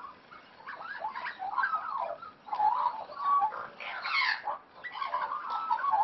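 Australian magpies warbling: a run of overlapping, gliding, chattering calls, with a higher sweeping call about four seconds in.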